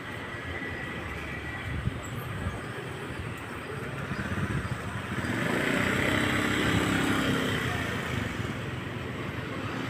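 A bus's engine running as it passes, with background traffic noise; the engine grows louder about halfway through and fades again near the end.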